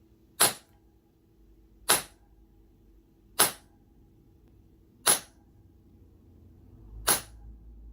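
Mallet striking a leather stamping tool into wetted leather to tool a pattern: five sharp single strikes, about one every one and a half seconds.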